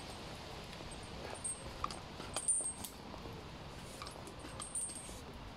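Tree-climbing spurs stepping up a small trunk: scattered short metallic clinks and light knocks as the spikes are set into the bark, the loudest few about two and a half seconds in.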